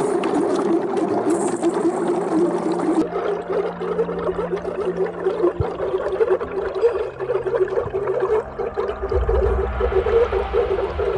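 Water bottle rocket being pressurized on its launch pad: air bubbles up through the water inside the bottles in a continuous bubbling, gurgling stream. A low rumble joins near the end.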